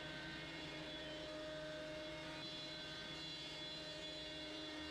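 CNC router's spindle running steadily as the bit cuts slat profiles into plywood, a constant whine with dust extraction drawing through the shoe.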